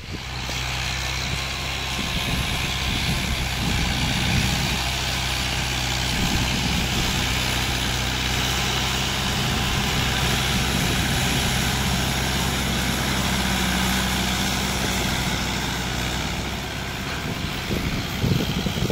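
Farm tractor's diesel engine running steadily while it pulls a tined cultivator through tilled soil, with a steady hiss over the engine note.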